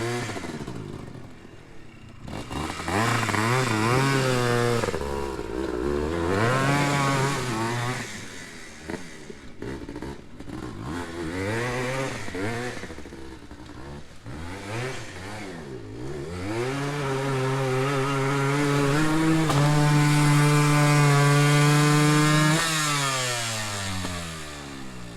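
Yamaha Blaster's two-stroke single-cylinder engine revving up and down several times, then held at high revs for about five seconds before dropping back, as the quad works through a muddy creek crossing.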